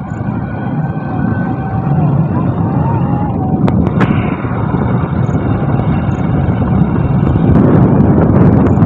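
Wind rushing over the microphone and road noise from a moving vehicle, a loud steady rush that swells near the end, with two sharp clicks about four seconds in.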